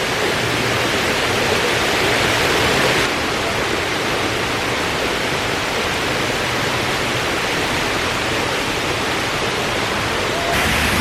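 Steady, loud rushing noise with no distinct events, its tone shifting abruptly twice.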